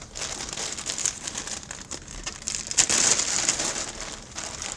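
Packaging crinkling and rustling as a jersey is pulled out and handled, loudest about three seconds in.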